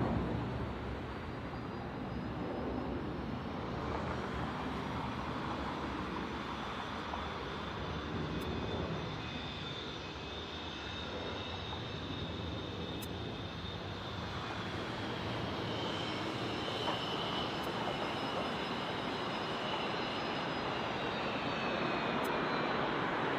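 Jet airliner engines running, a steady rumble with a high whine over it; the whine drops a little in pitch near the end.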